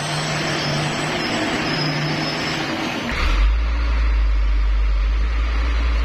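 Heavy Hino box truck on a wet road: a steady hiss for the first three seconds, then from about three seconds in a deep, steady diesel engine rumble, louder, with the truck close by.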